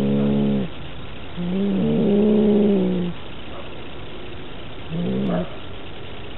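Domestic cat giving three low, drawn-out yowls at a steady pitch: a short one at the start, a long one lasting about a second and a half, and a short one near the end.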